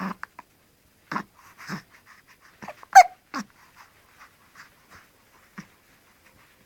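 Hiccups: a run of short, sharp hiccups at uneven intervals, the loudest about three seconds in, with fainter breaths between.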